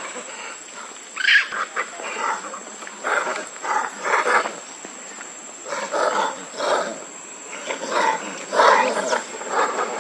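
Macaques calling: an irregular run of short, harsh calls, several a few seconds apart, over a thin steady high tone.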